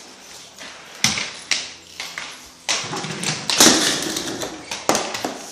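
Irregular sharp knocks and clatters with rustling, from objects and the camera being handled, the loudest a little past halfway.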